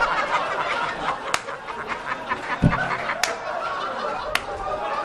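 Live audience laughing at a punchline, loudest at first and easing off, with a few sharp claps or knocks scattered through.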